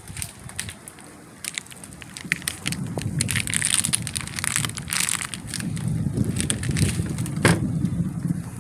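Crackling and rustling noise on the microphone, with a low rumble that builds about two and a half seconds in. One sharp crack comes near the end.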